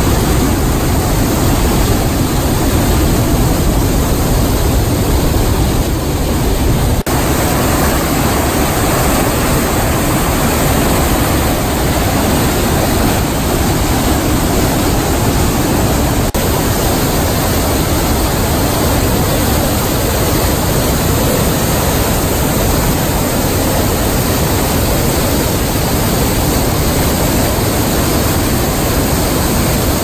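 Sogi Falls in flood, swollen by heavy rain: a loud, steady rush of water pouring over the rocks and through the rapids, its tone shifting slightly at two cuts, about seven and sixteen seconds in.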